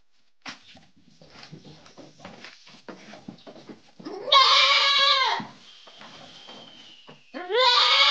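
Goat bleating twice: a long call about four seconds in and a shorter one near the end. Faint knocks and scuffling come before the calls.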